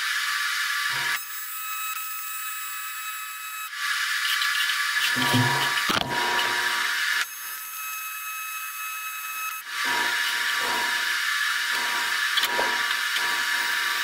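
TIG welding arc buzzing steadily while a seam is welded on diamond-plate sheet metal. The buzz steps louder and quieter a few times, with a light crackle in its louder stretch near the end.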